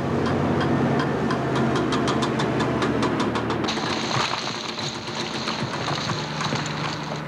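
Heavy construction machinery at a rock cut: diesel engines running while a machine-mounted rock breaker hammers into rock, with a fast run of sharp blows in the first half. About halfway through the sound changes and a high hiss joins the engine.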